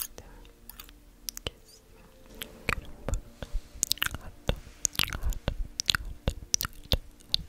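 Close-microphone ASMR trigger sounds: irregular crisp clicks and wet, crackly snaps. They are sparse at first and become a quick, uneven run from about two and a half seconds in.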